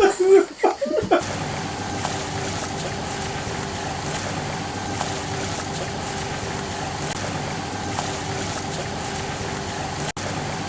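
A boat's engine running steadily under way, one even tone with no change in speed, with wind on the microphone. It cuts out for an instant near the end.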